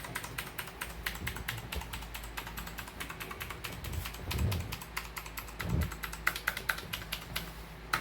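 Rapid typing on a mechanical keyboard with clicky blue switches: a dense run of sharp key clicks, several a second. Two dull low thumps come near the middle.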